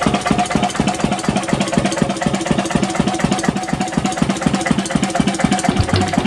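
1937 Lister CS 3.5 hp single-cylinder cold-start diesel stationary engine running steadily at about 650 rpm, with a fast, even beat of knocks from its firing and valve gear.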